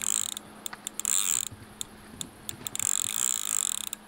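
A spinning reel's drag clicking as a hooked fish pulls line off the spool: short runs of rapid, buzzing clicks with single clicks between them.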